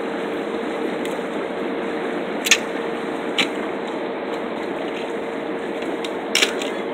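A steady hiss with a constant low hum, broken by a few sharp clicks or knocks, the loudest about two and a half seconds in and near the end.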